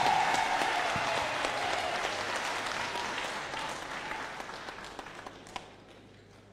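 A congregation applauding, loud at first and fading away over about five seconds.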